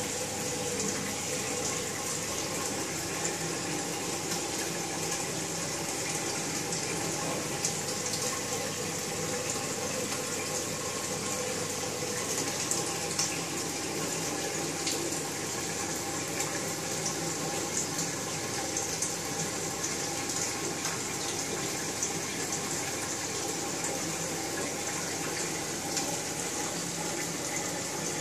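Steady rush of water circulating through a large aquarium's sump filtration, with a faint steady hum.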